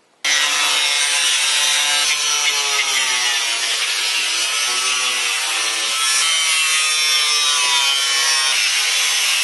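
Angle grinder with a cut-off wheel cutting through corrugated metal roofing: a loud, steady whine over a hiss of wheel on metal, its pitch sagging and recovering several times as the wheel bears down on the panel.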